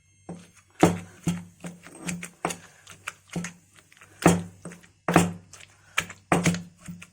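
Pestle pounding fried brinjal, tomato, green chillies and garlic in a small stone mortar, about two to three uneven strikes a second, each a dull thud.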